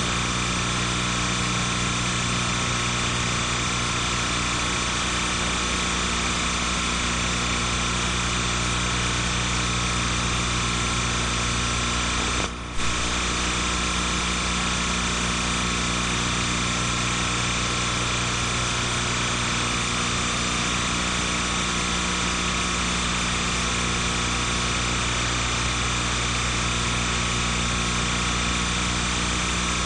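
Steady hum and hiss on the soundtrack of silent film footage: many constant tones that never change, with no speech or music. A brief dropout and click comes about twelve and a half seconds in.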